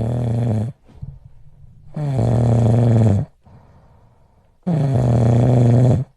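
A dog's low, drawn-out groaning sound, repeated three times about every two and a half seconds; each one lasts about a second, sliding down in pitch and then holding steady.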